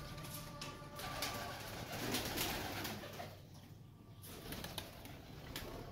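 Domestic pigeons cooing softly in a small loft room, dipping quieter for a moment partway through.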